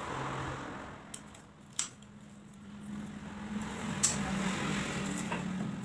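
Scissors cutting paper: a rustle of paper with three sharp snips, about two seconds, four seconds and five seconds in, over a low steady hum.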